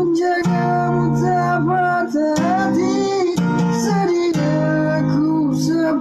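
Acoustic guitar strummed in steady chords that change every second or so, with a voice singing a slow melody over it.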